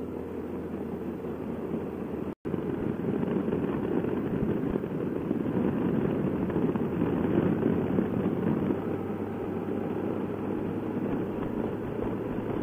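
Wind rush and engine noise of a Honda touring motorcycle riding at road speed, picked up by a helmet microphone as a steady low rumble. The sound cuts out completely for a moment about two and a half seconds in.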